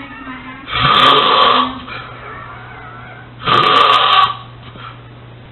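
A person snoring loudly: two snores about two and a half seconds apart, each lasting about a second, with a steady low hum underneath.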